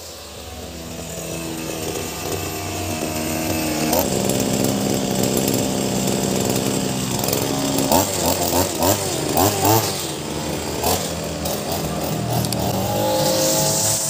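Ogawa 26cc brush cutter engine with a nylon-line trimmer head running, rising in speed over the first few seconds and then holding steady. Between about seven and ten seconds its pitch wavers up and down as the throttle is worked.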